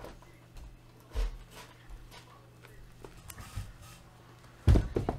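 Scattered soft knocks and taps of things being handled on a tabletop, over a faint steady low hum, with a cluster of louder thumps near the end.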